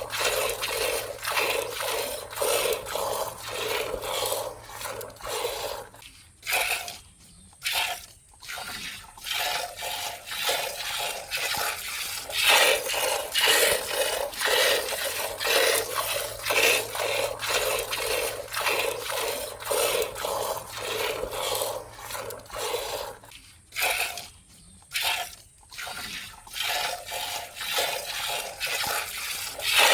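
Cow being milked: quick, rhythmic squirts of milk hitting the milk already in the pail, with a few short pauses.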